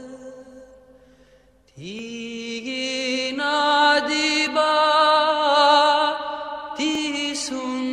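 Orthodox-style liturgical chant: voices hold a steady low drone while a wavering melody moves above it. The chant fades almost to nothing about a second in, then swells back with a rising slide just before two seconds in.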